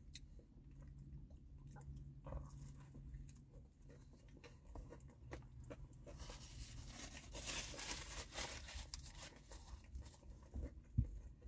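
A person chewing a crispy fried chicken sandwich: faint crunching and small mouth clicks, growing denser about halfway through, with one brief low thump near the end.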